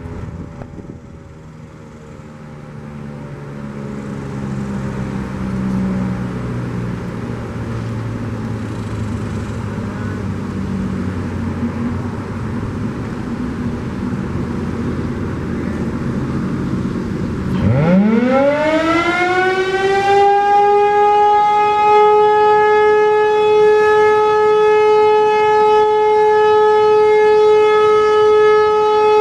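ASC T-135 AC/DC outdoor warning siren winding up, about 18 seconds in, from a low growl to a steady high tone, which it then holds. Before the siren starts there is only a low background rumble.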